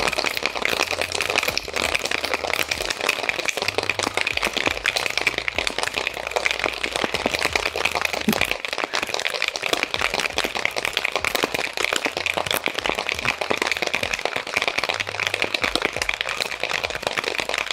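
Steel cocktail shaker tins shaken hard with a large rock of ice and a whiskey sour inside: a fast, continuous rattle and knock of ice against metal, with a bright ring from the tins.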